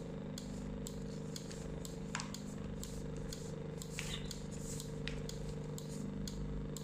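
A pair of electromechanical swing-gate linear actuators running on the bench, their motors humming steadily as they drive the rods in or out, with light clicks about three times a second.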